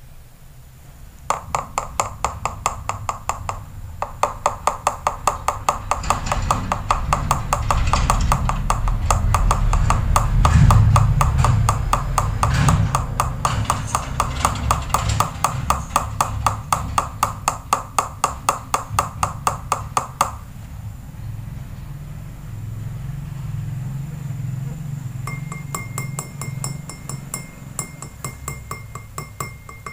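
Rapid, even tapping of a bamboo skewer against a plastic tub, several taps a second, knocking excess liquid latex off a dipped soft-frog lure so the coating spreads evenly. It stops suddenly about two-thirds through, and tinkly background music comes in near the end.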